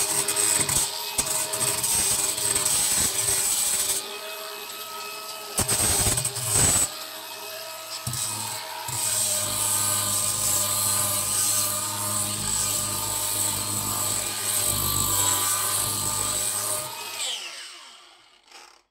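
Angle grinder with a coarse 40-grit sanding disc running and sanding old paint off a painted wooden stair tread: a steady motor whine under a rough grinding rasp that swells and dips as the disc is pressed on and lifted. Near the end the motor is switched off and winds down.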